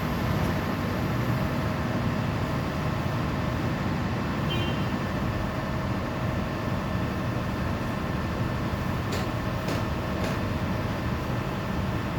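Diesel engine of a demolition excavator running steadily, with three short knocks or clicks about nine to ten seconds in.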